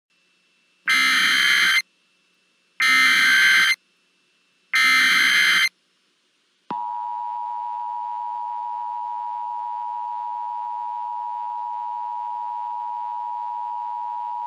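Emergency Alert System alert sequence: three short bursts of SAME header data tones, each about a second long and two seconds apart. About seven seconds in, the steady EAS two-tone attention signal (853 and 960 Hz) starts and holds unbroken, announcing an emergency alert.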